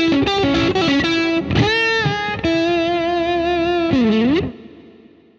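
Electric guitar playing a blues lead lick on the B and G strings: quick single notes with string bends, then a long held note. The held note ends in a quick dip and rise in pitch and is cut off about four and a half seconds in, ringing out briefly.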